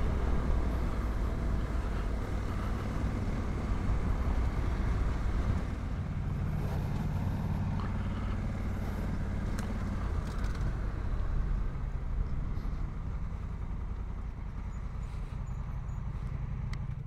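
Honda Africa Twin's parallel-twin engine running at low road speed on a dirt track, with tyre and wind noise. The engine note shifts about six seconds in and eases slightly near the end as the bike slows.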